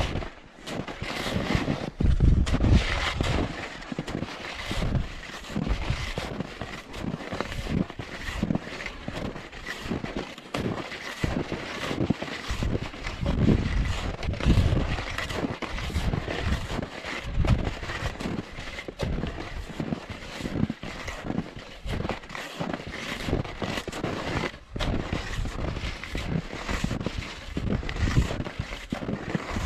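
Hunting skis shuffling and crunching through snow in repeated strides, roughly one stride a second.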